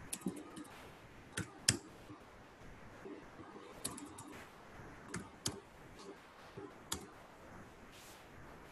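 Computer keyboard keys and mouse buttons clicking, a few at a time, in small irregular groups.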